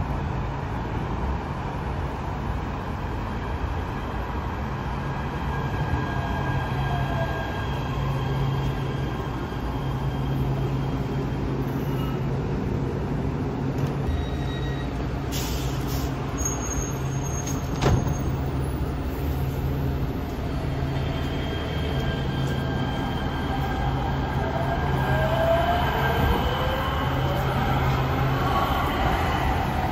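Los Angeles Metro electric light-rail train at an elevated platform: it pulls in with its motors whining, stands with a steady low hum from its onboard equipment, and pulls out near the end with the motor whine rising. A short high beep and a single clunk come about halfway through.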